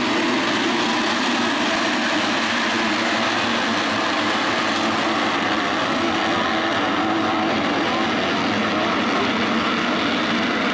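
A full pack of motocross bikes racing together, many engines revving at once and blending into one dense, steady drone with wavering pitch.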